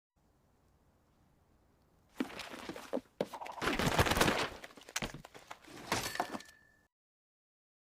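Cartoon crash sound effect: after about two seconds of silence, a run of clattering impacts and shattering, breaking noises lasting about four seconds, with a short high tone near the end.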